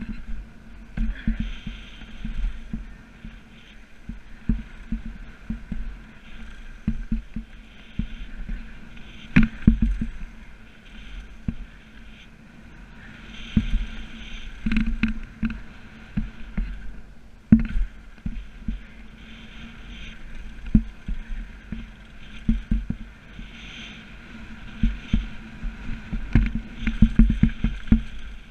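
A mountain bike being ridden hard down a rough freeride trail: the bike's frame and parts rattle and clatter continuously, with repeated sharp knocks and thuds from hits and landings, the loudest about a third of the way in and again just past halfway.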